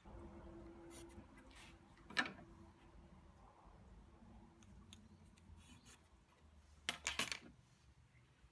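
Faint handling sounds against low room noise: a few short clicks and scrapes, the loudest about two seconds in and a quick cluster around seven seconds.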